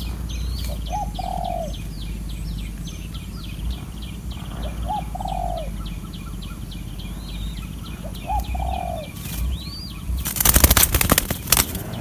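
A dove cooing three times, each call a short note followed by a longer arched one, about four seconds apart, over fast high chirping in the background. Near the end comes a loud burst of rapid wing flapping lasting about a second and a half, from a young spotted dove beating its wings at the nest.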